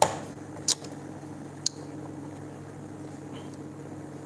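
Fingers tapping and handling the phone that is recording: a sharp tap at the start, the loudest sound, then two lighter clicks about a second apart, over a steady low hum.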